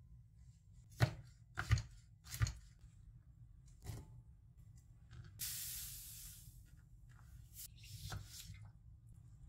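Kitchen preparation sounds: four sharp knocks on a work surface, then a short hiss about halfway through, and a few light clicks and taps near the end.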